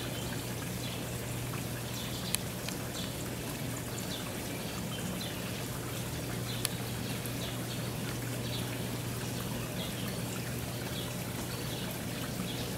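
Steady rush of flowing river water, with faint short high chirps repeating throughout and two sharp clicks a few seconds apart.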